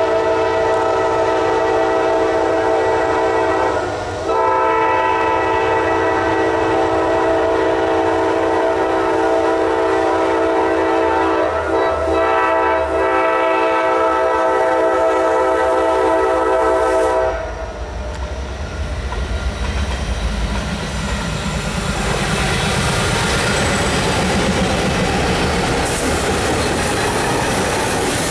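A Norfolk Southern GE Dash 9-40CW locomotive's air horn sounds a chord for the grade crossing in two long blasts, with a brief break about four seconds in, and cuts off about seventeen seconds in. Then the diesel locomotives run past close by, followed by the wheels of double-stack container cars clattering over the rails.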